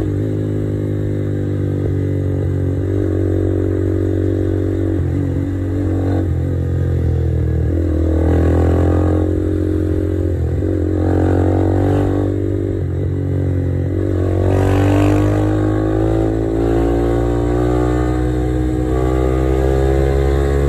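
Motorstar Z200ii motorcycle engine heard from the rider's seat while riding, accelerating in repeated runs: the pitch rises and then drops back at each gear change, several times over, above a steady low rumble.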